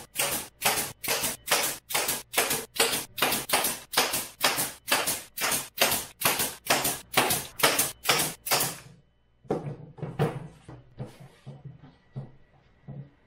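Pneumatic nail gun firing nails through plywood into a wooden frame, a steady run of about two shots a second that stops about nine seconds in. A few softer knocks follow.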